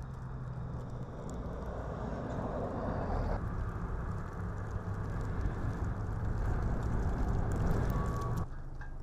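Heavy motor vehicle running, a steady low engine hum with road noise that grows louder, changing abruptly about three and a half seconds in and again near the end.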